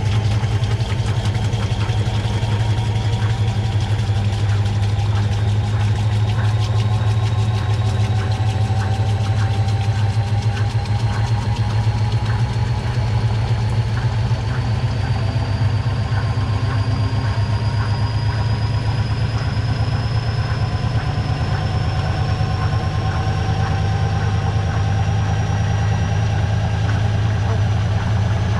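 Washing machine drum spinning, its motor whine slowly rising in pitch as it speeds up, over a steady low hum and fast regular ticking.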